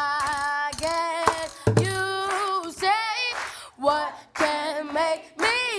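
A young male performer singing in a high voice, holding long notes with vibrato and sliding between pitches, with a few hits on a plastic bucket drum.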